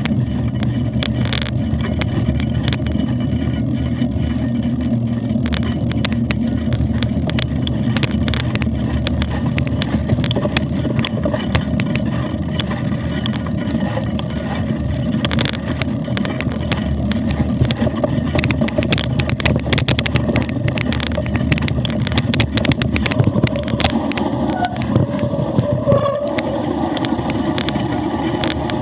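Mountain bike ridden over a muddy, stony track, heard from a camera on the bike or rider: a steady rumble of tyres and wind on the microphone, with frequent rattling clicks and knocks from the bike.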